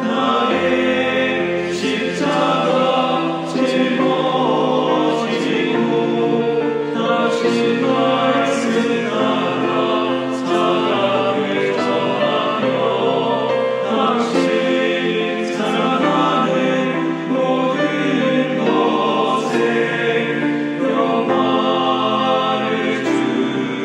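A choir of male Catholic priests singing a Korean hymn together, the phrases running on without a break and closing on the words 'grant us peace' (평화를 주소서).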